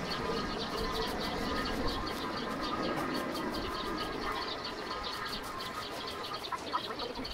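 Outdoor ambience of birds chirping and insects buzzing, with a steady, evenly repeating high-pitched ticking running through it.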